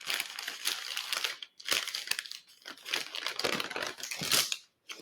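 Crinkling of the wrapper on a sterile glove pack as it is handled and opened, in several rustling spells with a short pause about a second and a half in; it stops suddenly near the end.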